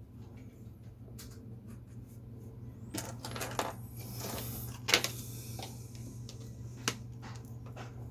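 Small hard clicks and clatter of drawing tools being handled and set down on a desk. A scratchy rustle runs through the middle, and a sharp click comes about five seconds in and another near seven seconds, over a steady low hum.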